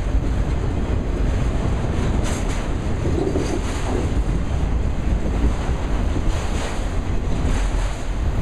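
Loaded auto rack freight cars rolling past at close range: a steady rumble of steel wheels on the rails, with a few faint sharp clicks along the way. Wind buffets the microphone underneath it.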